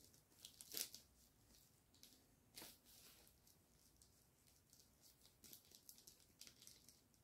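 Near silence broken by faint rustles and light ticks of hands handling diamond painting kit packaging: one soft rustle about a second in, another near the middle, and a run of small ticks near the end.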